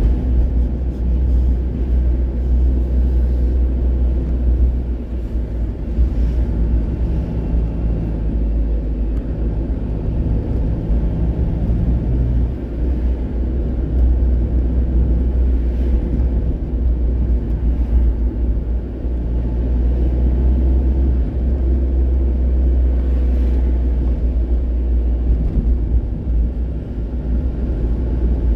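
Road vehicle driving along a town street, heard from inside the cab: a steady, heavy low rumble of engine and road noise, with a few faint knocks from bumps in the road.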